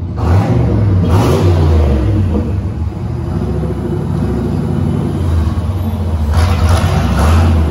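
Turbocharged Fox-body Mustang 5.0 V8 running, revved hard twice: once about a second in and again near the end.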